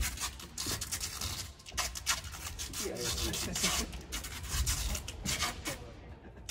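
Irregular rubbing and rasping scrapes with a low rumble underneath, and faint voices in the middle.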